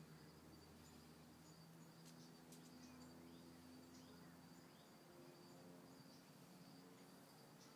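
Near silence: a faint steady high trill of insects over a faint low hum.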